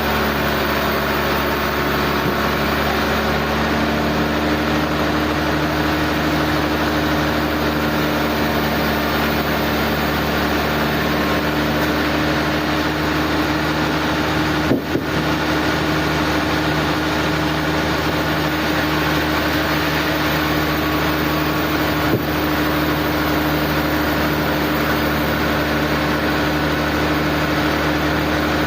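Sawmill machinery running at a steady speed: a constant engine hum that does not rise or fall. Two brief knocks, about halfway through and again about seven seconds later.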